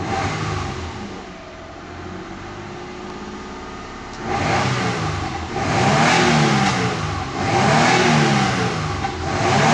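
1999 Mitsubishi Triton's 3.0-litre petrol V6 idling, heard from inside the cab, then free-revved in Park four times in quick succession, each rev climbing to about 4,500 rpm and dropping back.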